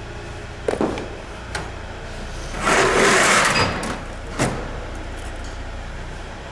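Tool work on the car's rear hub and drive shaft: a few sharp metallic clicks and knocks, and a rasping noisy burst lasting about a second in the middle, over a steady low hum.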